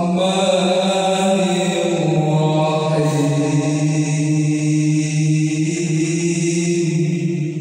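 A man's voice chanting long, held notes, amplified through the mosque's TOA ZS-240CW slim line array speakers, with a little echo from the hall. The pitch steps down about two seconds in and the note is held for about six seconds.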